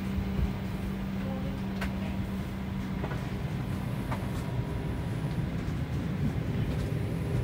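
Steady low hum and rumble of a parked Boeing 737-800's cabin air system, with a low steady tone that stops about three seconds in and a few light clicks.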